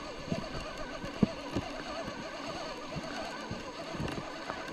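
A continuous warbling chorus of animal calls, with a few short knocks, the sharpest about a second in.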